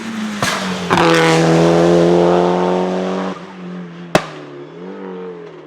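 Mitsubishi Lancer Evolution VI Group A car's turbocharged 4G63 four-cylinder under hard throttle, with sharp cracks about half a second and a second in. It holds a steady high pitch for about two seconds and then lifts off. A single loud bang from its anti-lag misfiring system comes about four seconds in, and the engine then runs on more quietly.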